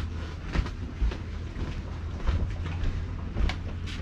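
Steady low engine rumble from a tour boat, with a few scattered knocks and footsteps on the deck.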